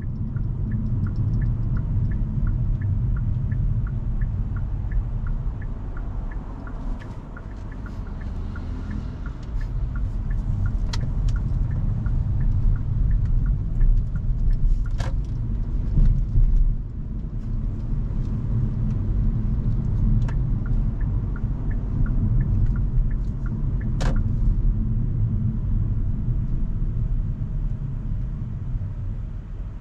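Road rumble inside a moving Hyundai Kona Hybrid, with the turn signal ticking evenly through the first half and then stopping, as the car makes a right turn. Two sharp knocks stand out later on.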